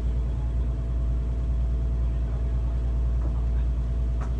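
Fishing boat's engine running steadily under way, a deep, even drone.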